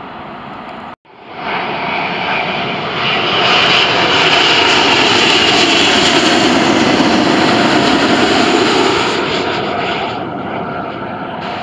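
A Boeing 777 airliner's twin jet engines as it passes low overhead on final approach with its gear down, the roar swelling to a peak and then easing off. The sound cuts out sharply for a moment about a second in, just before the roar builds.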